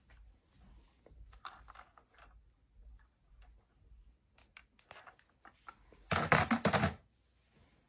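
Soft clicks and rustles from handling the hair-braiding tool and a thread-wrapped strand of wig hair, then one loud burst of noise lasting just under a second about six seconds in.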